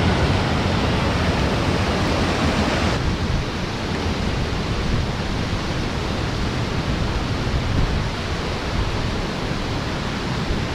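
Rain-swollen mountain stream in spate, white water rushing steadily over rocks. About three seconds in the hiss thins slightly.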